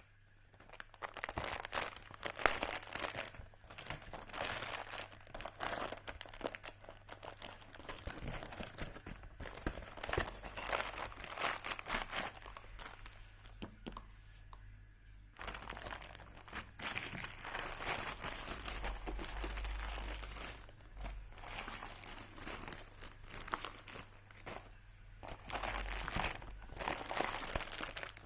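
Packaging crinkling and rustling as it is handled and unwrapped by hand, irregular and continuous, with a short pause about halfway through.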